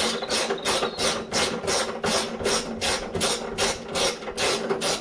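Hand ratchet clicking in quick, even strokes, about four or five a second, undoing a nut that holds chrome trim on a car's boot lid.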